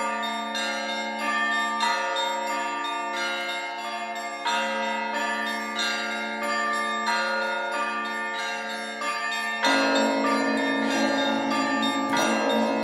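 Church bells ringing: a repeating sequence of bell strikes, roughly one a second, each left to ring on. About ten seconds in, lower, heavier bells join and the strikes come thicker.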